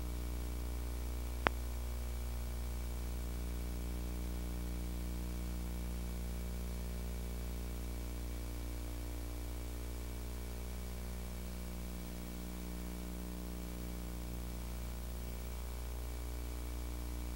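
Steady hiss and electrical hum from VHS tape playback, with no music or voice, and one sharp click about a second and a half in.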